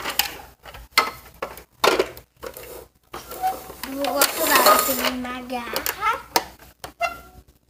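Hard plastic Paw Patrol toy fire truck clattering as it is turned over and handled: a series of sharp knocks and clicks of plastic parts against each other and the floor.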